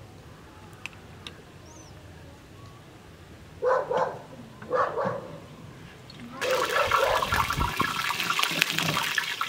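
Hot water poured from a soot-blackened kettle into a glass teapot, starting about two-thirds of the way in as a loud, steady splashing rush. Before it come two short, loud sounds about a second apart.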